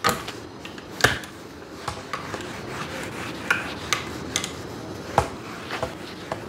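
Yellow duster wiping a whiteboard, a steady rubbing broken by several sharp knocks.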